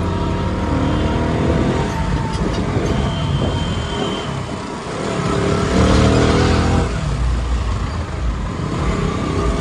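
Motorcycle engine heard from the rider's seat, revving up twice as the bike accelerates through traffic, with wind and road noise on the microphone.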